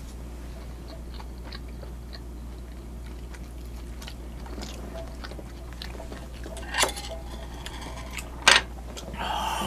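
Close-up mouth sounds of someone chewing a bite of oily Korean pancake (buchimgae), with many small wet clicks. Two sharp clacks come near the end as the chopsticks are set down by the plate.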